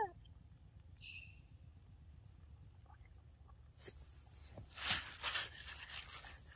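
A young macaque biting into and chewing a ripe mango, with a run of noisy bites from about four seconds in. Under it runs a steady, high insect drone, and a brief falling squeak sounds right at the start.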